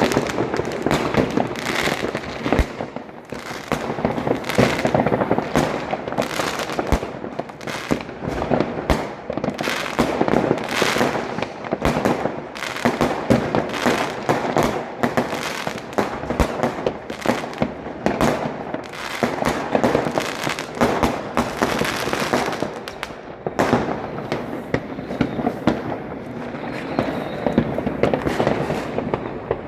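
New Year fireworks going off continuously: rapid, overlapping bangs and crackling with no pause.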